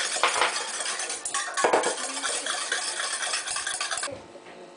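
Small wire whisk scraping and clinking rapidly against a stainless steel bowl, whisking a little dark sauce. The whisking stops abruptly about four seconds in.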